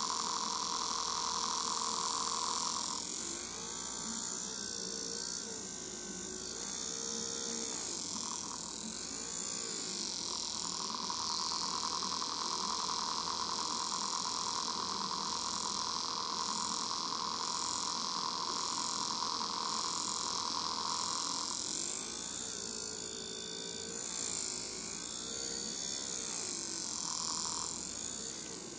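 Maxon 2140.937 brushed DC motor running unloaded on a DC supply: a steady high whine over a hum. The tone wavers for a few seconds twice, and the level drops near the end.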